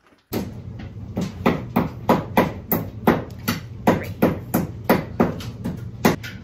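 A hammer driving nails into wooden ceiling framing, with steady strikes about three a second that stop shortly before the end.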